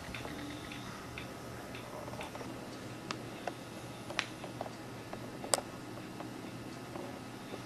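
A few scattered light clicks and ticks over a low steady hum, with one sharper click about five and a half seconds in.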